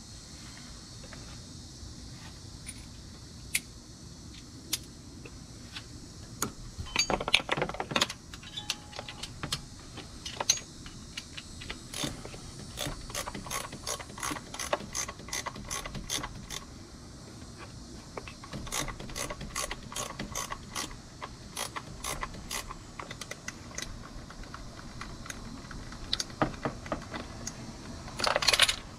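Hand ratchet clicking in runs with pauses as a socket on an extension turns a thermostat housing bolt into the aluminum water pump. A brief, louder rattle of metal near the end.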